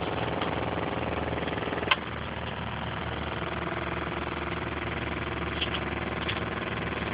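A steady mechanical hum, like a motor or engine running. A sharp click comes about two seconds in, after which the hum drops a little and changes, and a few faint ticks follow later.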